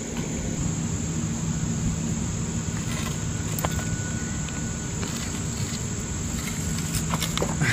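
Steady high insect trill over a low steady hum, with a few faint clicks.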